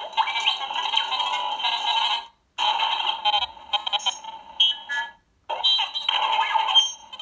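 Recorded Star Wars sound effects played through the Sandcrawler playset's small built-in speaker as its sound buttons are pressed: three clips in turn, each cut off abruptly, thin with no bass.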